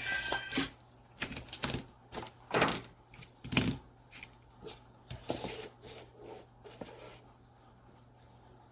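Handling noise: a run of sharp clicks and knocks, the loudest in the first four seconds, then softer taps that thin out and stop about seven seconds in.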